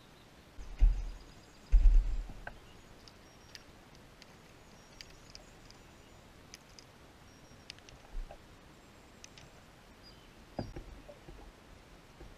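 Dull knocks and bumps on a plastic fishing kayak's hull, picked up through a camera mounted on the kayak: two heavy thumps close together about a second in and a lighter one near the end, with scattered small clicks and taps of fishing gear between them.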